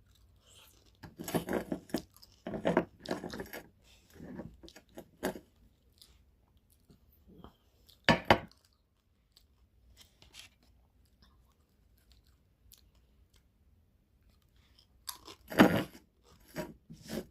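A person chewing and crunching food close to the microphone, in a run of bites over the first few seconds, once more about eight seconds in, and again near the end.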